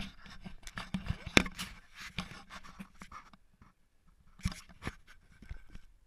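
Handling noise from a camera being grabbed and picked up by hand: a sharp knock at the start, then rubbing, scraping and clicks against the camera for about three seconds, dropping to a few scattered clicks near the end.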